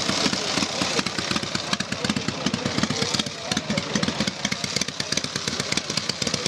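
Engine of a 1913 Rex 896cc veteran motorcycle running at low speed as it moves off, a rapid, even beat of exhaust pulses.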